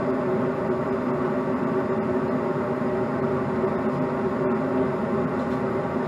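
80% gas furnace running: a steady mechanical hum from its inducer motor, with a few constant tones, unchanged throughout.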